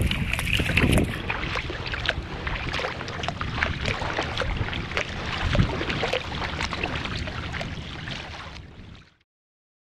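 Kayak paddle strokes splashing and dripping on the sea, with water lapping against the kayak. The sound fades out and stops about nine seconds in.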